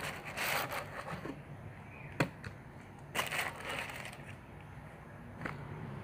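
Tissue paper in a shoebox crinkling and rustling as it is handled, in two bursts, one at the start and one about three seconds in, with a sharp click between them and another near the end.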